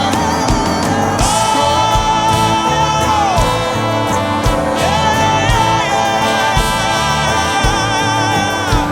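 Worship music: a voice singing long held notes that slide down at the ends of phrases, over a steady beat.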